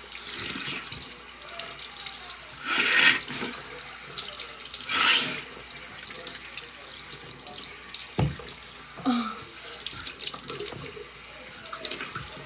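Bathroom tap running into a sink while hands splash water to wash the face, with two louder splashes about three and five seconds in and a short knock a little after eight.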